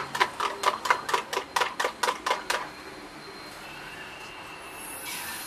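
Eggs being beaten with a fork in a cup: quick, even clinks, about four to five a second, which stop after about two and a half seconds. Then comes a faint steady sizzle of oil and egg in a frying pan, growing slightly louder near the end.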